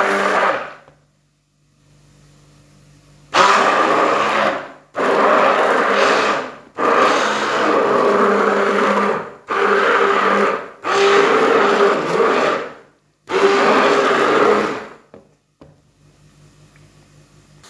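Immersion (stick) blender pureeing a pot of thick cooked lentils and grains, run in short pulses. It stops about a second in, then starts again near three seconds and runs in six bursts of one to two and a half seconds, with brief pauses between them.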